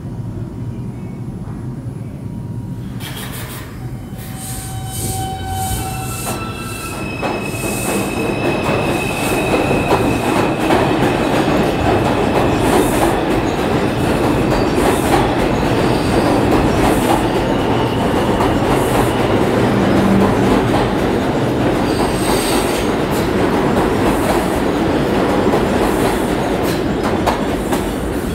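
R142 subway train pulling out of an underground station. A steady electric hum at a standstill gives way, about three seconds in, to a stepped whine from the propulsion that climbs in pitch as the train starts to move. It then turns to loud, steady wheel-and-rail noise with clacking over rail joints and brief wheel squeal as the cars pass and accelerate away.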